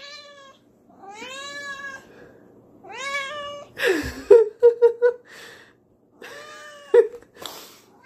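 Domestic cat meowing again and again: several long meows that rise and fall in pitch, with a quick run of short chirping meows about four seconds in. The cat is begging to be fed.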